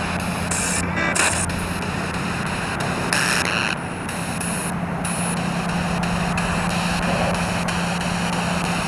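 Spirit box radio sweeping through stations: continuous radio static with a low hum, its hiss jumping abruptly from one burst to the next every fraction of a second as it scans.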